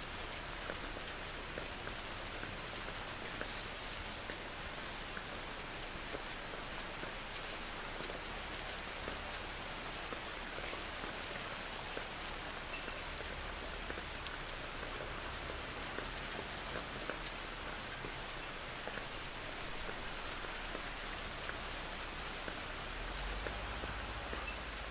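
Steady heavy rain falling, a dense even hiss with many small drop patters, as in a thunderstorm. A low rumble swells near the end.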